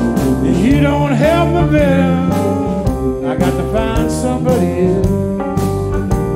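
Live blues band with electric guitars, bass, drums and keyboard playing a steady groove, with an amplified harmonica taking an instrumental break: two phrases of bending, wavering notes over the band.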